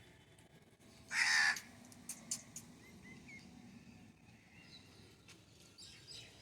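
A crow gives one loud, harsh caw about a second in, followed by a few faint clicks and short chirps.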